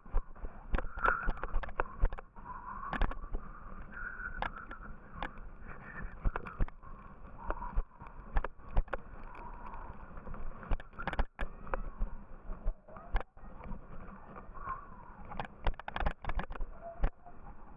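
A yooner's ski sliding and scraping over packed snow on a run downhill, a steady rushing hiss. Frequent sharp knocks and jolts come through as it bumps over the slope.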